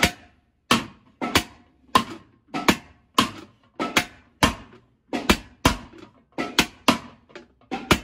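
Steel hammer beating the inside wall of a large aluminium cooking pot, about one and a half blows a second in a steady rhythm, some blows doubled. Each strike is a sharp metallic clank with a short ring.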